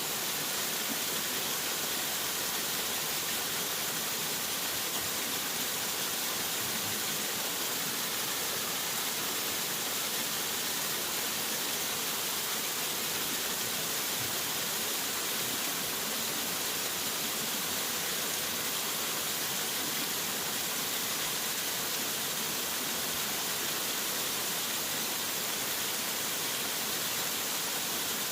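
Waterfall: a steady rush of falling water, an even hiss that does not change.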